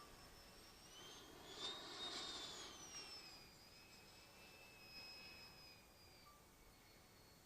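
Faint whine of a 145 mm electric ducted fan RC jet passing overhead: the pitch rises as it approaches, is loudest about two seconds in, then drops and fades away.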